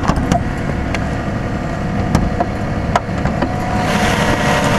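1993 Toyota Camry V6 engine idling with the air conditioning on, heard from the open engine bay: a steady low running sound with a few steady whining tones. A few sharp clicks come through, and a hiss rises about four seconds in.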